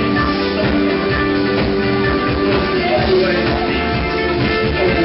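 Rock band playing live: electric guitars with sustained chords over bass and drums, loud and steady.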